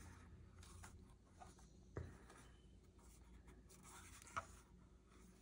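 Near silence with faint handling sounds: a light click about two seconds in and a softer tick a little after four seconds, as a plastic statue is lifted off its plastic display base.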